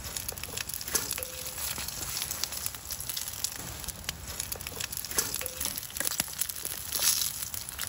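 French fries frying in a pan of hot oil: a steady sizzle with many small crackles and pops.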